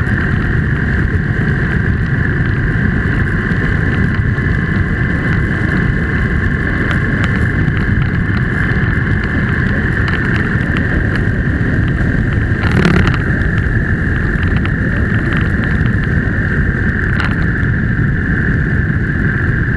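Steady driving noise from a moving vehicle: constant road and engine rumble under a steady high whine. About 13 seconds in there is a brief jolt, as over a bump in the road.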